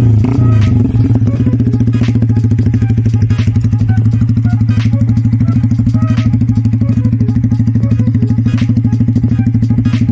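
Yamaha R15 V3's single-cylinder engine idling through a Kawahara Racing exhaust: a steady, rapid pulsing note, a little unsteady in the first second before it settles.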